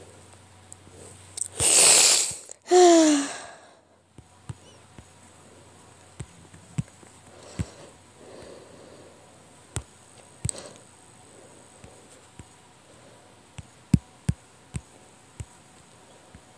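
A person's two loud breathy bursts of breath about two seconds in, the second ending in a short falling vocal sound; then scattered light taps, the stylus tapping on the tablet screen.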